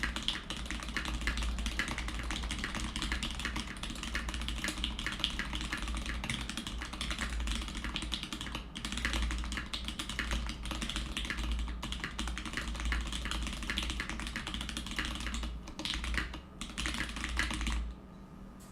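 Fast, steady typing on a TX-CP mechanical keyboard fitted with Zealios V2 67g tactile switches lubed with Krytox 205g0, a brass plate and PBT keycaps. A few short pauses break the typing, and it stops shortly before the end.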